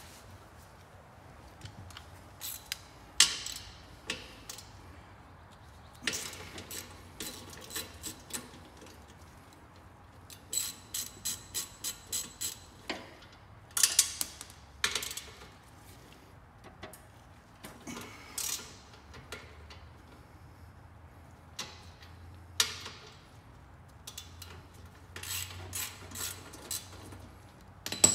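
Hand ratchet clicking in short runs and steel sockets and tools clinking with a metallic ring, as the bolts of a slip-on motorcycle muffler are tightened to its mount bracket.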